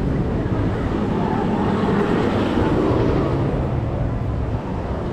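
Strong wind buffeting the camera microphone, a steady rumbling roar that swells slightly in the middle.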